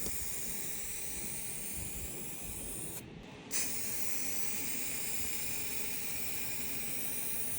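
Paint being sprayed: a steady hiss that stops briefly about three seconds in and then resumes.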